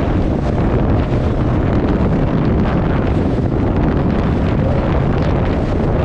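Steady wind rush buffeting the onboard camera's microphone on an outboard-powered offshore race boat running at speed, with the engine and the hull on the water mixed in beneath it.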